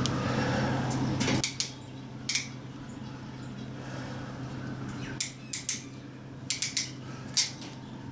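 Scattered sharp clicks and light taps of small wiring parts and tools being handled while terminals are fitted into an electrical connector. A low steady hum cuts off about a second and a half in.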